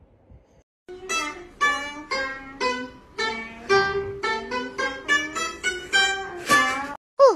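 Chinese plucked lute (pipa-type) playing a melody of single plucked, ringing notes, about three a second, starting about a second in. A brief sliding tone sounds at the very end.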